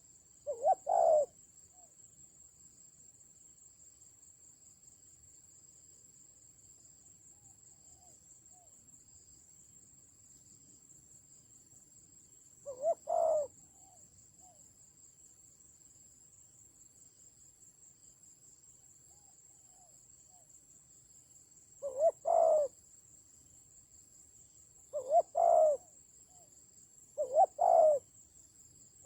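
Spotted dove cooing: five short coo phrases spaced several seconds apart, each a couple of quick notes followed by a longer one. A faint, steady, high-pitched whine runs underneath.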